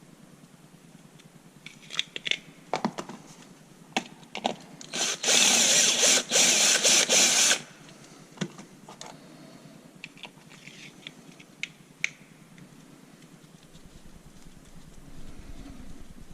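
Handheld power drill run in a few short pulses for about two and a half seconds, drilling a hole, with scattered clicks and knocks of handling before and after.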